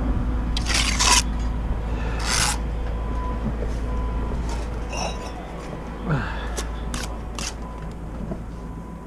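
Steel brick trowel scraping wet mortar: three short rasping strokes in the first two and a half seconds, then a few sharp clicks later on.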